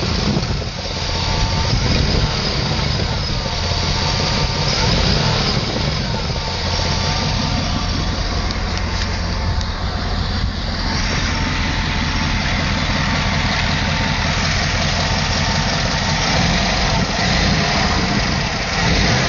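LT1 V8 engine idling steadily, with a noise that the owner suspects is an exhaust leak and says sounds real bad.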